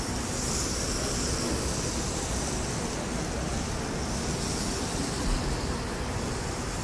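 Steady rushing background noise with a hiss high up, with no clear single source.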